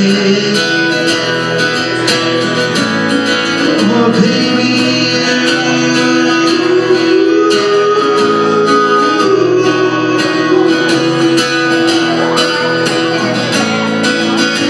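A man singing to his own strummed acoustic guitar in a live solo performance.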